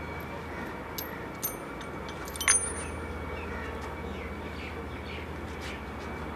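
A few light metallic clinks of small steel engine parts being handled, the loudest about two and a half seconds in, over a steady low hum.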